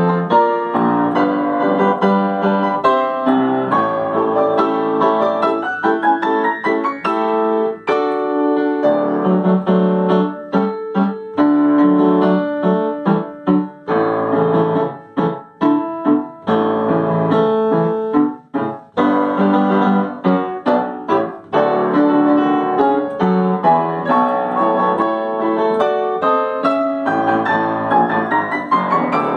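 Yamaha upright piano played solo: a fast, busy passage with quick rising runs a few seconds in and again near the end.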